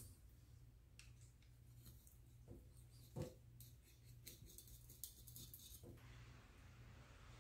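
Near silence with a few faint, short taps and scrapes of a kitchen knife cutting a small barracuda on a plastic cutting board, the clearest about three seconds in.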